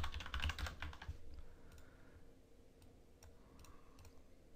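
Typing on a computer keyboard: a quick run of keystrokes in the first second, then a few single clicks spread out.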